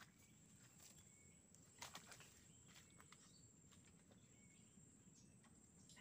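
Near silence: faint outdoor ambience with a steady high-pitched tone and a few soft clicks, about two seconds in and at the start.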